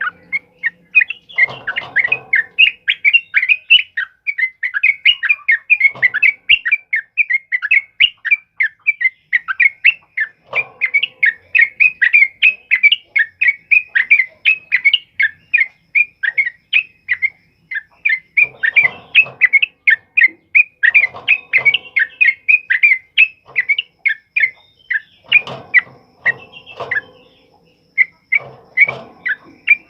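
Yellow-vented bulbul singing its rapid chattering 'ropel' song: a long run of short, loud notes at about four a second, with a short pause near the end. Lower, harsher calls break in several times.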